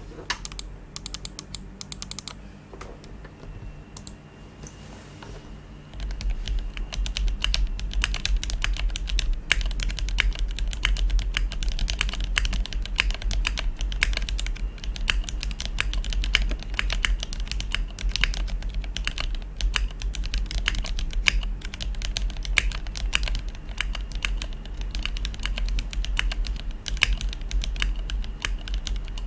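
Typing on a Tofu60 mechanical keyboard with lubed Gateron Pro Milky Yellow linear switches, a polycarbonate plate and Akko 9009 cherry-profile keycaps. A few scattered keystrokes come first, then fast, continuous typing from about six seconds in.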